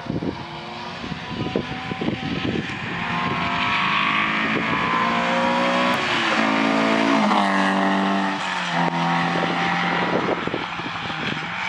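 Rally car engine approaching hard on a wet tarmac stage, its revs dropping twice and picking up again as it passes close, then pulling away at steadier revs, with the hiss of tyres on the wet road underneath.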